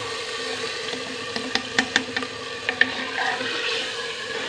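Steel spoon stirring mashed aubergine as it fries in a clay pot: a steady sizzle, with a few sharp clicks of the spoon against the pot between about one and a half and three seconds in.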